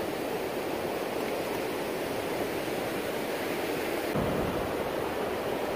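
Steady wash of ocean surf breaking on a sandy beach. About four seconds in, a deeper low rumble joins it.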